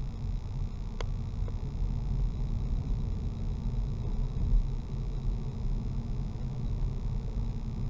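Car running along a narrow lane, heard from inside the cabin: a steady low rumble of engine and tyres, with one sharp click about a second in.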